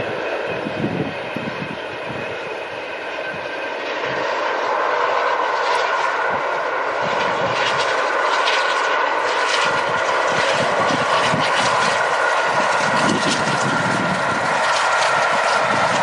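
Three-cylinder Peppercorn A1 Pacific steam locomotive 60163 Tornado hauling a Pullman train at speed: a rushing exhaust over the rumble of the rolling train, growing louder about four seconds in as it draws near.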